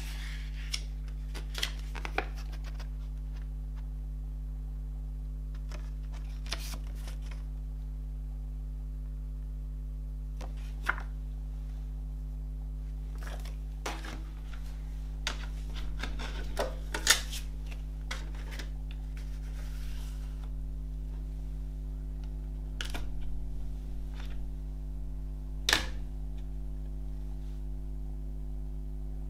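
Hands handling a CD and its paper booklet: scattered sharp clicks and short paper rustles, the sharpest clicks about two-thirds of the way through and near the end, over a steady low electrical hum.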